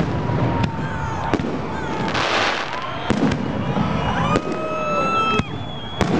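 Fireworks going off: repeated sharp bangs, with several whistling tones from the shells gliding and holding, and a brief hiss about two seconds in.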